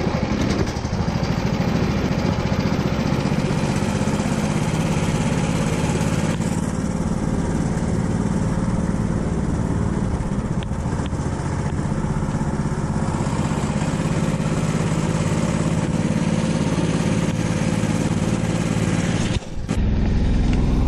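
Engine of a karakat, a homemade all-terrain vehicle on huge low-pressure tyres, running steadily as it drives along. It breaks off briefly near the end and picks up again.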